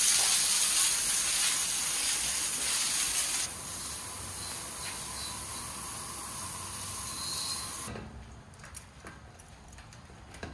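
Water jet from a garden hose spray nozzle hissing as it washes wet brick pavers. It drops quieter about three and a half seconds in and cuts off about eight seconds in, followed by a few faint clicks.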